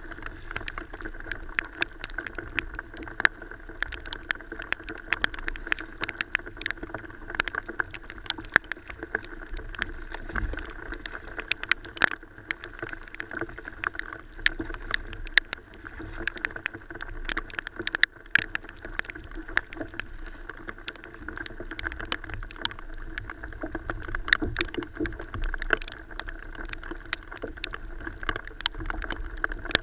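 Choppy water slapping against a plastic fishing kayak's hull, with many irregular sharp taps and knocks on the boat.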